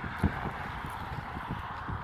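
Footsteps of someone walking on a sidewalk, short dull thumps at an uneven pace over steady background street noise.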